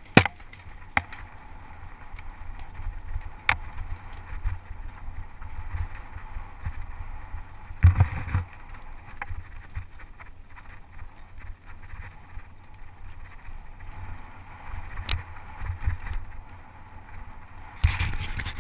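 Mountain bike riding over a rough dirt track: a steady low rumble from the tyres and frame, with sharp knocks from bumps now and then and a heavier jolt about eight seconds in.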